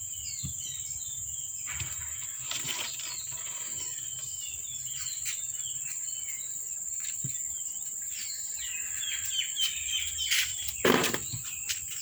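Outdoor background of repeated short, high chirps over a steady high-pitched drone, with two louder, lower sounds, one about three seconds in and one near the end.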